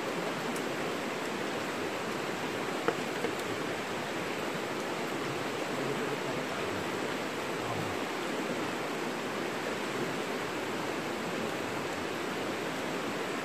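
Steady rush of flowing river water, an even hiss with no rhythm, with one short tap a little under three seconds in.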